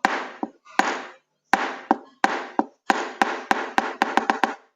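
Hammer blows: about fifteen sharp strikes in a row, each with a short ringing tail, coming faster near the end.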